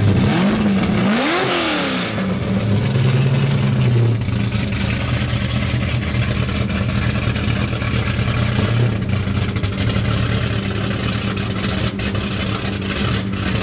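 Corvette ZR1's supercharged V8 running: a quick rev up and back down in the first couple of seconds, then running steadily at idle.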